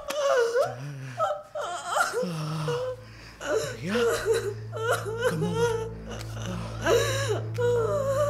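Short, wavering non-word vocal sounds, gasps and moaning cries, over a low steady drone in the background music.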